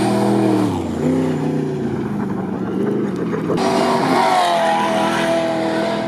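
Off-road race truck engines running loud as they pass. The first engine's pitch drops about a second in, as on a shift or a lift off the throttle. After a sudden cut a second truck's engine rises to a high pitch and holds it.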